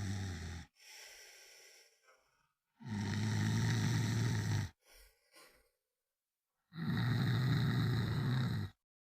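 A person snoring: three low, buzzing snores of about two seconds each, roughly four seconds apart, the first trailed by a softer breath out, with dead silence between.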